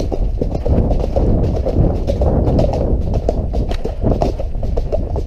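A ridden horse's hoofbeats on a dirt track at speed, heard from the saddle, over heavy wind buffeting on the microphone.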